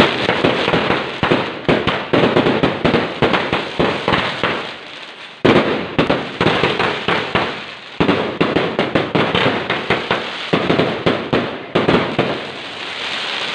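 Fireworks going off in a dense barrage: rapid, overlapping bangs and crackling. It fades and then starts again abruptly a few times.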